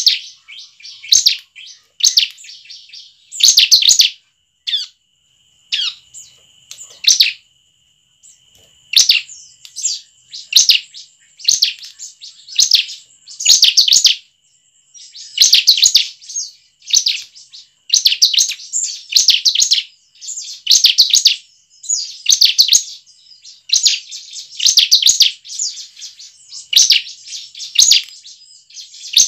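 Bar-winged prinia (ciblek) singing: loud bursts of rapid, high chipping notes, each about half a second long, repeated about once a second with short pauses between.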